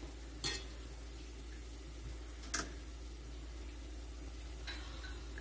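Two short sharp clicks about two seconds apart, then a fainter one near the end, over a low steady hum and faint hiss.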